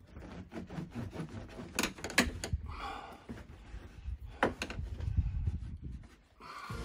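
A cloth rubbing and pressing a foil-faced sound-deadening mat onto a car door's inner sheet metal: irregular scuffing and crinkling, with a few sharper knocks against the door panel about two seconds and four and a half seconds in.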